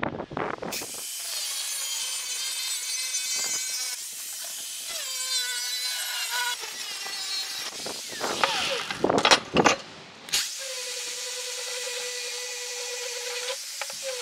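Angle grinder running and grinding steel: a steady high-pitched whine that sags slightly in pitch under load. About two-thirds of the way through come a few loud knocks, then the grinder runs steadily again.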